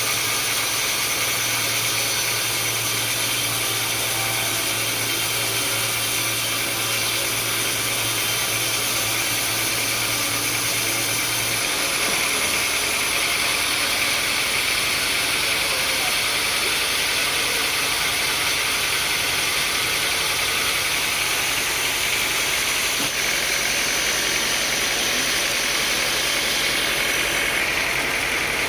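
Sawmill machinery running steadily: a motor's low hum under a constant hiss, the hum shifting slightly lower about twelve seconds in.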